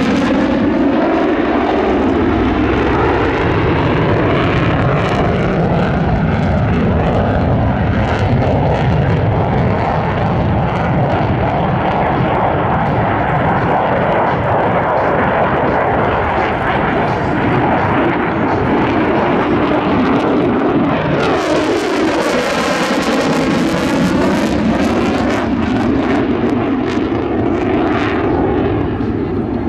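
Loud, continuous jet roar from an F-35's afterburning Pratt & Whitney F135 engine during a low demonstration pass, with a slow phasing sweep as the jet moves. About two-thirds of the way through, a harsher, crackling edge comes in.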